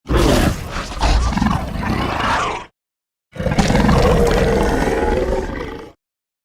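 Two Indoraptor creature roars, fan-made dinosaur sound effects, each about two and a half seconds long with a short silence between them. The second roar holds a steadier pitch.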